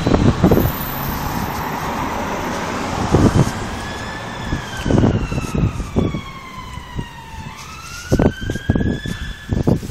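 An emergency vehicle's siren wailing in slow sweeps from about three seconds in: the pitch climbs for about a second, falls slowly over about three seconds, then climbs again near the end. Low thumps on the microphone break in several times.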